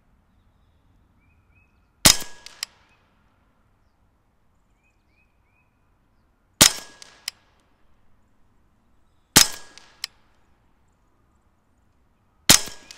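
Hatsan Blitz .30-calibre PCP air rifle fired in semi-auto, one shot at a time. There are four sharp cracks a few seconds apart, each followed by a fainter second crack. Faint bird chirps come between shots.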